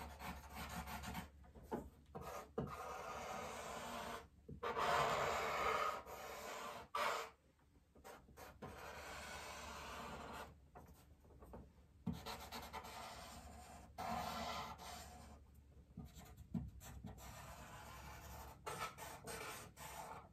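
Paper blending stump rubbing charcoal into drawing paper on its side: soft scratchy strokes with short pauses between them, the loudest run about five seconds in.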